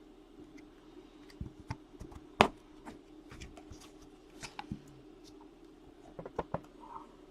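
Trading cards being handled and set down on a table: scattered sharp taps and clicks, the loudest about two and a half seconds in and a quick cluster near the end, over a steady low hum.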